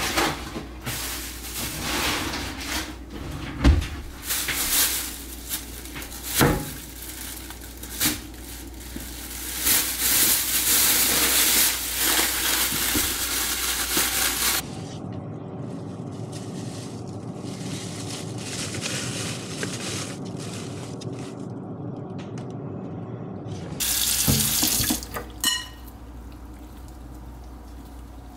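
Kitchen food-prep handling noise: an uneven hiss with scattered knocks and clatters, dropping abruptly to a quieter hum about halfway through, with a brief louder stretch near the end.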